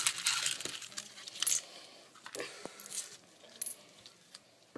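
Pennies being rubbed and knocked about in a plastic bowl of washing water: a rubbing, sloshing noise fades over the first second, then a few scattered light clicks of coins against each other and the bowl.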